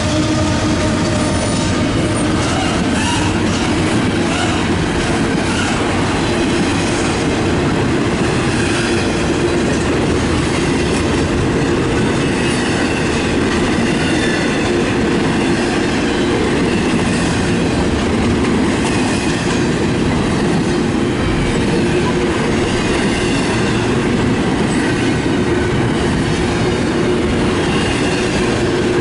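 Double-stack intermodal freight cars of a Canadian National train rolling past close by: a steady, loud rumble of steel wheels on rail with clickety-clack over the rail joints and thin wheel squeals at times.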